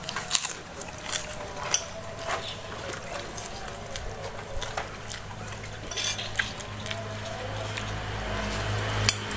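Metal spoon clinking and scraping against a ceramic plate of rice, a scattering of light taps. Near the end a low engine hum comes in and grows louder.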